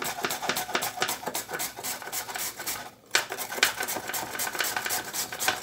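A peeled carrot rubbed quickly back and forth over the coarse grating blade of a flat plastic slicer-grater: a fast run of rasping strokes, with a brief pause about three seconds in.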